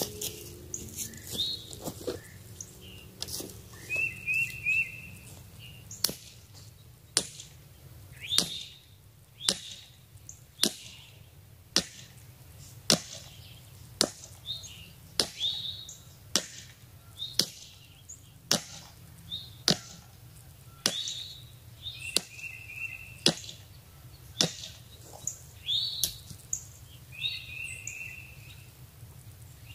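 Hammer blows driving a stake into the ground, a steady sharp strike about once a second, with birds chirping faintly.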